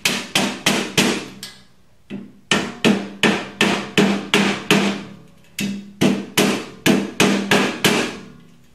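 Rubber mallet striking a steel shelving beam to knock its rivets down into the keyhole slots of the upright. The blows come in three quick runs of about three a second, with the steel frame ringing low under them.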